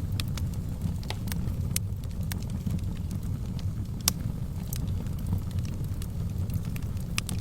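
Fire burning in a fireplace: a steady low rumble of flames under irregular sharp crackles and pops, the loudest about four seconds in.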